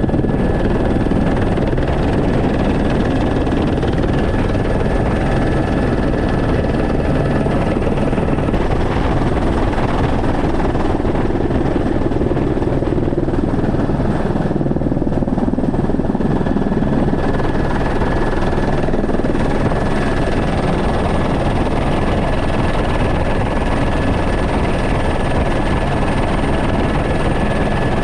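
Helicopter in flight, heard from inside the cabin with the side door open: a loud, steady rush of rotor and engine noise with a thin steady high whine over it, unchanging throughout.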